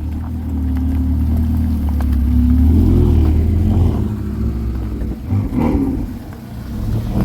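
A car engine running with a steady low hum, swelling in loudness a couple of seconds in and easing off near the end.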